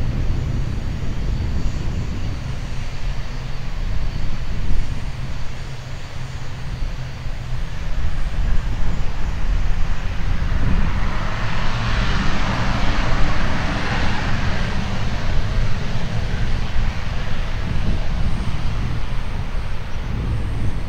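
ATR 72-600's twin Pratt & Whitney PW127 turboprop engines running as the aircraft taxis for departure, over a steady low rumble. The propeller hiss grows louder for a few seconds around the middle, then eases.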